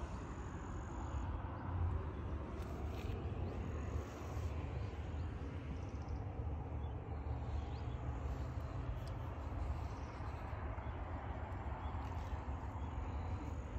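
Outdoor rural ambience: a steady low rumble with faint bird calls over it, and no talk.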